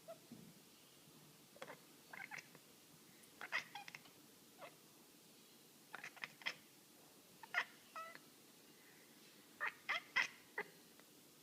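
A cat chirping and chattering: short, clipped high squeaks, often two or three in quick succession, with pauses between. This is the cat's typical reaction to a bird it can see but cannot reach.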